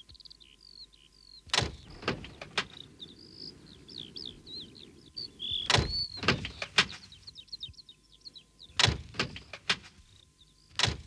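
Birds chirping throughout, with three sets of three sharp clunks about half a second apart, the clunks the loudest sounds.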